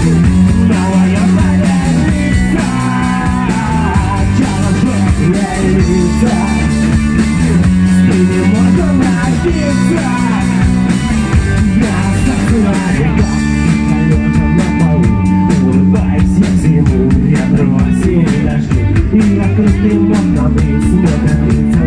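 Rock band playing live: electric guitar, bass guitar and drum kit, with a male singer's voice over them. About two-thirds of the way in the drumming changes to quick, even cymbal or hi-hat strokes.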